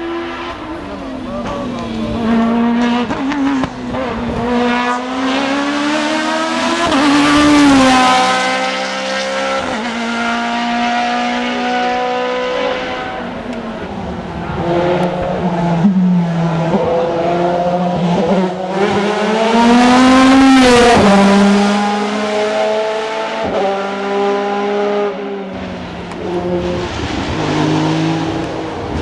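Hill-climb race car engine revving hard, its pitch climbing and then dropping sharply again and again as it shifts through the gears. It gets loudest twice, about a quarter and about two-thirds of the way through.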